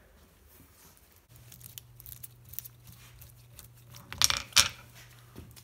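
Small steel parts of a South Bend lathe apron clicking and clinking as they are worked loose by hand and lifted out of the cast-iron housing, with a louder metal-on-metal clatter about four seconds in.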